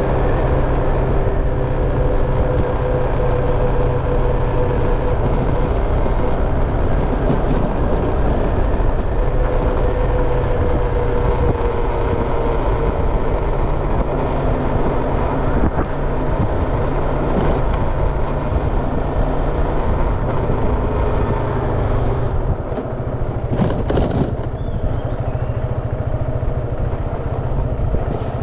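Motorcycle on the move: a steady engine drone under constant road and air rush, with a short rattle about 24 seconds in.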